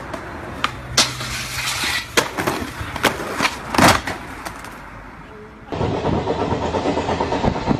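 Skateboard clattering, with a series of sharp clacks of the board striking the ground. About six seconds in, a steady rush of wind noise on the microphone takes over.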